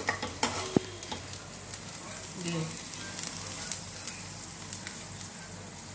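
Chopped potatoes and bottle-gourd peels frying in oil in a non-stick kadai, sizzling steadily, while a spatula stirs and scrapes them with scattered clicks against the pan. The sabzi is cooked dry in oil without water and has turned golden brown.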